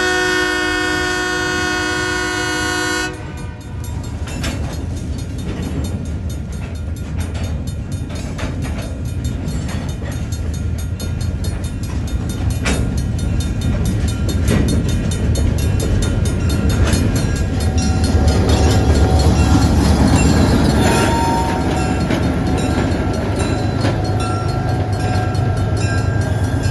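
Diesel switcher locomotive sounds its horn in one blast of about three seconds, then its engine rumbles as it moves slowly with a string of gondola cars, with scattered clanks from the cars. The rumble is loudest about two-thirds of the way through, as the locomotive comes close.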